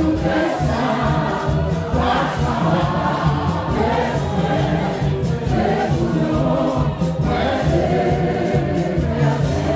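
Live gospel worship song: a small group of men and women singing together into microphones over band accompaniment with a steady bass line and drums.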